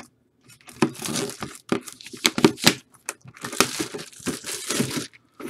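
Plastic packaging crinkling and tearing in quick, irregular crackles as a product is handled and opened.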